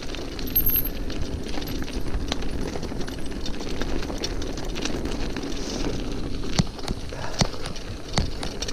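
Mountain bike rolling over a frozen dirt trail: a steady rumble of the tyres on hard ground, with scattered clicks and knocks from the bike rattling over bumps, a few sharper knocks near the end.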